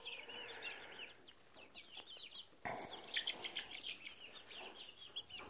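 A flock of five-week-old chicks peeping: many short, high chirps overlapping in quick succession, faint.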